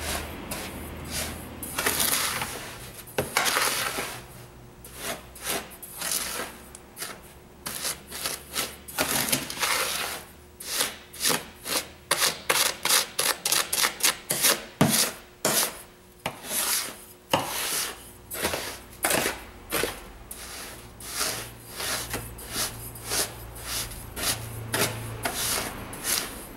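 Metal spoon scraping and stirring through coarse bath salts (Epsom salt, sea salt and baking soda with lavender buds) in a plastic mixing tub, pressing lumps against the bottom to blend them in: a run of uneven, gritty scrapes.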